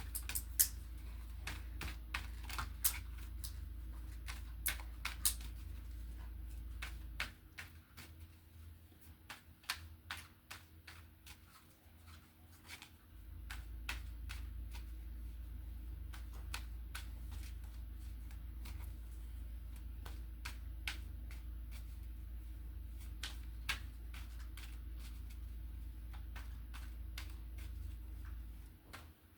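A deck of tarot cards being shuffled by hand: a long run of quick card clicks and snaps, irregular and sometimes in fast flurries. Under it a space heater hums low and steady, falling away about seven seconds in, coming back about six seconds later, and stopping just before the end.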